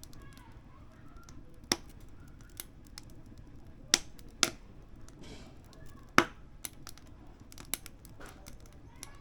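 Firewood crackling in a wood-burning stove: irregular ticks and sharp pops, the loudest about 4 and 6 seconds in.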